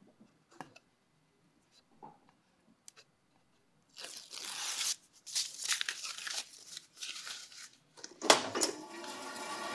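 Backing being peeled off a strip of double-stick tape on a wooden bandsaw sled, several rasping, crinkling pulls over about four seconds. Near the end there is a sharp knock, and the bandsaw's motor starts and begins to run up.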